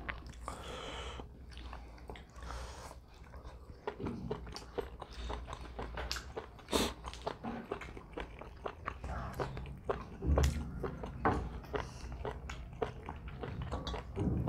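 Close-miked eating: roast chicken pulled apart by hand and chewed, many small irregular clicks of biting and chewing.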